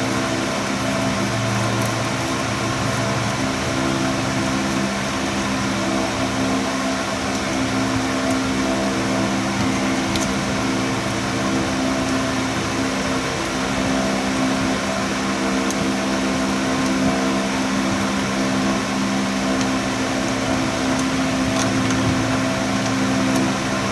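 Steady machine hum, like a running fan, unchanging throughout, with a few faint light clicks.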